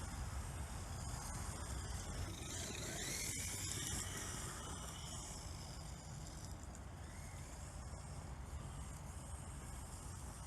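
Traxxas X-Maxx RC monster truck's brushless electric motor whining faintly at a distance, with a pitch that rises and falls around three seconds in. It fades a little in the second half, over a low wind rumble on the microphone.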